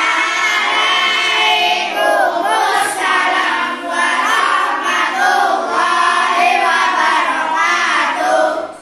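A class of primary-school children singing together in unison, loud and steady, stopping shortly before the end.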